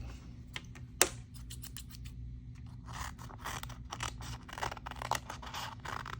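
Scissors cutting through taped paper, a run of short snips and crisp blade clicks with one sharp click about a second in.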